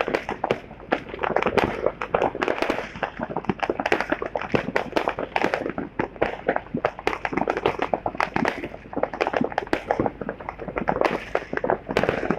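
Fireworks and firecrackers going off in a dense, unbroken string of sharp pops and crackles, many bangs a second and overlapping.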